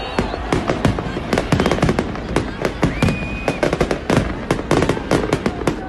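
Fireworks display: a rapid, continuous barrage of bangs and crackles from bursting shells and firecrackers, with a brief high whistle about halfway through.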